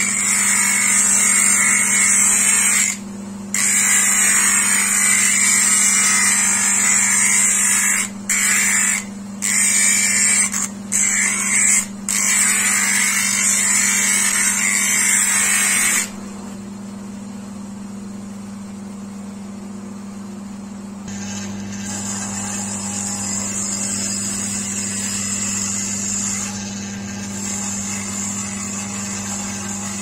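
Mountain goat horn being ground against a spinning abrasive wheel: a loud steady hiss over the motor's constant hum, broken by several brief lifts. About halfway through the grinding stops and only the motor hum is left, then a softer sanding hiss comes in as the handle's edge is worked on a small drum.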